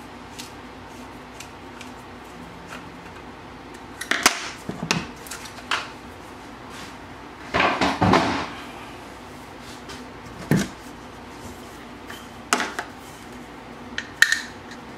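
Inline skate frame being put back together by hand: scattered clicks, knocks and clatters of wheels, axle bolts and tools being handled, with a longer rattling cluster about eight seconds in and a single sharp knock about a second and a half later.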